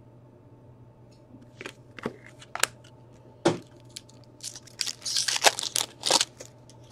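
Crinkling and rustling of a foil trading-card pack wrapper and cards being handled, with scattered sharp clicks, busiest about four to six seconds in.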